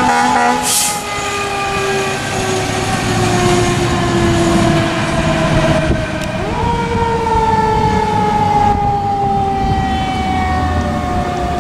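Fire truck's mechanical siren winding down slowly in pitch after being wound up. About six seconds in it is quickly wound up again and begins another long, falling coast-down. A short hiss comes about a second in.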